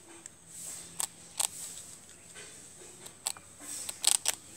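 A squirrel crunching on hard toast: a handful of sharp, crisp crunches at uneven intervals, with a quick cluster of the loudest ones near the end.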